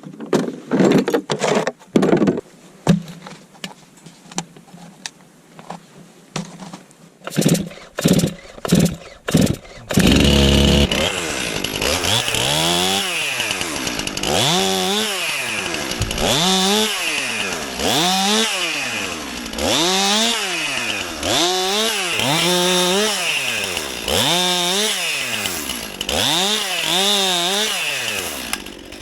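Knocks and clicks, then a STIHL MS 261 C-M two-stroke chainsaw starts about ten seconds in. Its engine is revved up and down over and over, about once every two seconds.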